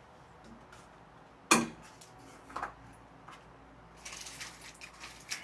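Metal parts and hardware being handled during assembly of an exercise machine: one sharp metallic clank about a second and a half in, a lighter knock about a second later, then a run of small clicks and rattles near the end.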